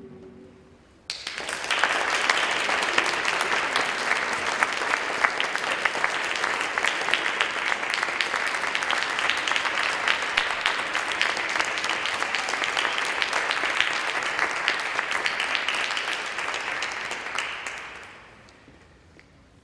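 Audience applauding: the clapping starts suddenly about a second in, holds steady, and fades away near the end.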